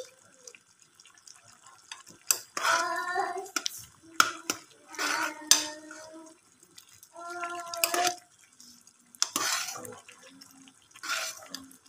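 Metal spoon stirring noodles in a metal pot of soup, clinking sharply against the pot's side at irregular intervals, with some liquid sloshing. A person's voice sounds in between the clinks.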